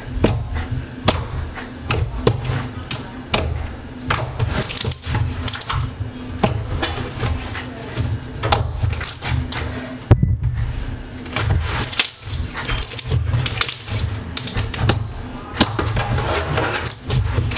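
Freshly activated glossy slime being squished, poked and stretched by hand, giving irregular sticky clicks and pops over a low handling rumble.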